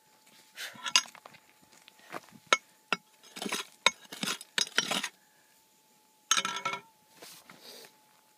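A small prospecting pick digging into stony ground. Sharp metal-on-rock clinks come at irregular intervals with scrapes of gravel and soil, and the last heavy scrape comes a little past the middle.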